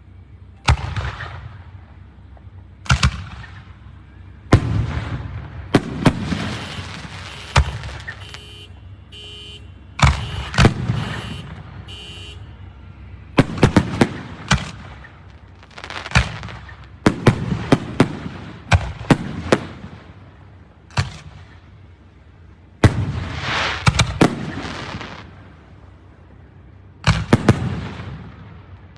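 Aerial fireworks shells bursting one after another, with loud bangs, some single and some in quick clusters. Several bursts trail off into hissing and crackling.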